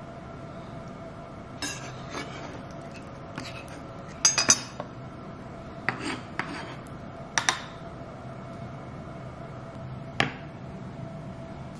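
Metal spoon clinking and scraping against a glass cup and a plastic tub while spooning soaked chia seeds and mango, a scatter of short sharp clinks with the loudest cluster about four seconds in, over a faint steady hum.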